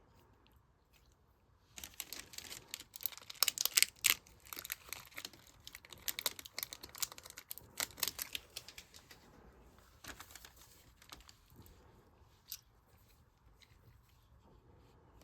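Slime with beads mixed in, squished and worked by hand: a dense run of crackling, popping clicks begins about two seconds in and thins out to scattered pops after about ten seconds.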